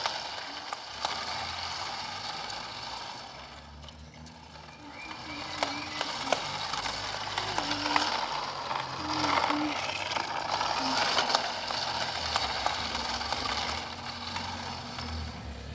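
Skateboard on wet asphalt: wheels rolling with a hiss that swells and fades, broken by a few sharp clacks of the board.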